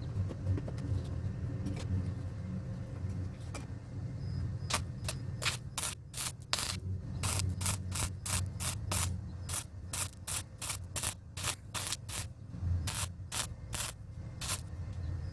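Metalwork on a steel pipe greenhouse frame over a steady low hum; about a third of the way in, a fast, irregular run of short hissing or scraping strokes begins, roughly two a second.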